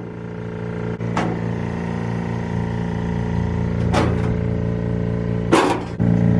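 A steady, even engine-like hum runs throughout, broken by a few short clanks or knocks, the loudest a little before the end.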